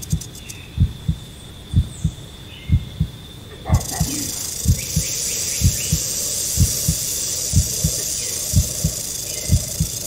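A heartbeat thumping in double beats about once a second. About four seconds in, a western diamond-backed rattlesnake's rattle starts up as a steady high buzz under the beats.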